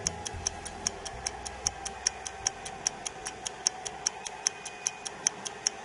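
Clock-like timer ticking: sharp, even ticks about five a second over a faint low hum.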